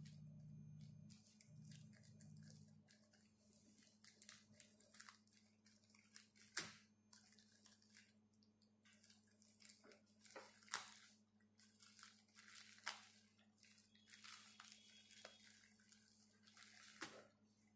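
Faint crinkling and crackling of a plastic courier mailer being slit open with a knife and handled, with four sharper snaps spread through. A steady low hum sits underneath.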